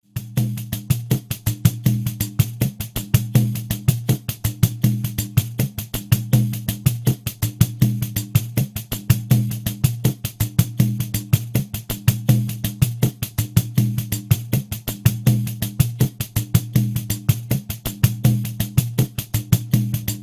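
Pandeiro playing a steady groove at 80 beats per minute: quick, even strokes with jingle rattle over a low bass tone that recurs on the beats. It starts abruptly.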